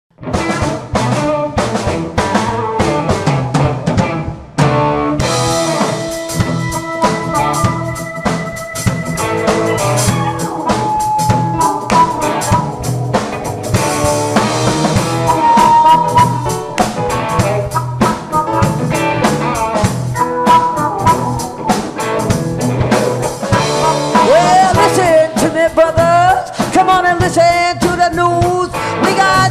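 Blues band playing the song's instrumental intro: drum kit keeping a steady beat under bass guitar, guitar and keyboard. The sound fills out about five seconds in, and pitched lines bend up and down near the end.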